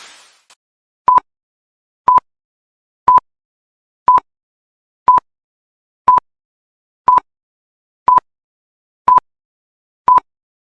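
Electronic interval-timer beeps: ten short, identical beeps at one steady pitch, one per second, counting down the rest between exercises.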